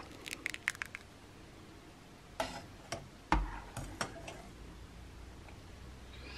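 Metal ladle clinking against a steel pot and a ceramic bowl as soup is ladled out: a quick run of light clicks in the first second, then a few sharper knocks around the middle, one with a dull thump.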